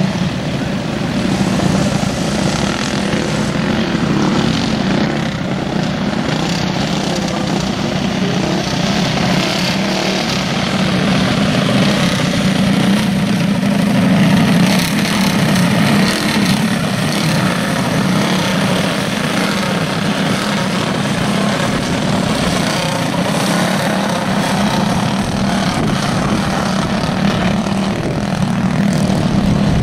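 Several go-kart engines running together on a dirt track, a steady engine drone with no pauses.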